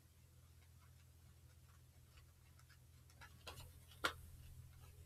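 Faint, scattered clicks and snaps of tarot cards being shuffled by hand, growing busier past the middle, with one sharper card snap about four seconds in. A low steady hum sits underneath.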